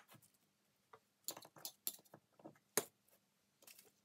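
Scattered light metallic clicks and clinks of steel lathe-chuck parts being handled and worked apart, with a sharper tap just under three seconds in.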